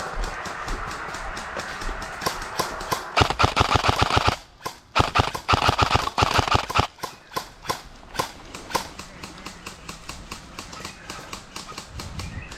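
Airsoft guns firing: a rapid full-auto burst of snapping shots about three seconds in, a second longer burst just after, then scattered single shots.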